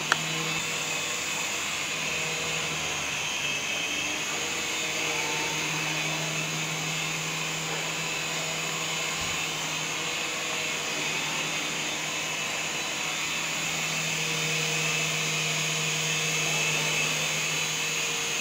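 Radio-controlled toy helicopter's small electric motors and spinning rotor blades giving a steady whirring buzz as it hovers and flies about, getting a little louder later on.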